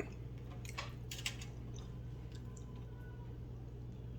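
Faint mouth sounds of a person chewing food, with a few small clicks about a second in, over a steady low hum.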